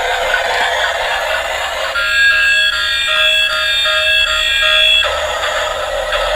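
Battery-powered toy vehicle playing an electronic alarm-like beeping tune for about three seconds, starting about two seconds in, over a steady whirring hiss.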